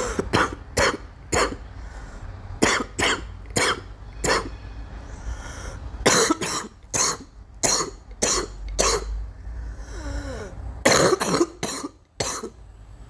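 A girl coughing in repeated fits: about five bouts of three or four coughs each, separated by short pauses.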